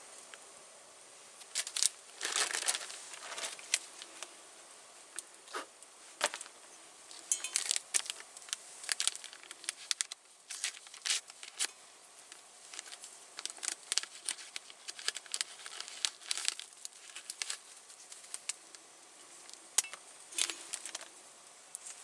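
Paper tea-bag sachet being torn open and crinkled, with a dense burst of crinkling and tearing about two seconds in, then scattered crinkles and small clicks as the tea bag and its string are handled.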